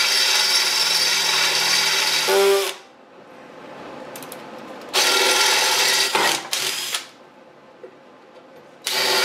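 DeWalt cordless drill boring a hole through a mini bike's metal frame tube: a steady whine that stops about three seconds in, runs again for about two seconds from about five seconds in, then starts once more near the end.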